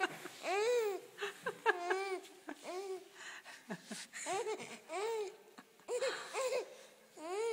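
Baby giggling: a string of short, high-pitched squeals that each rise and fall, about two a second.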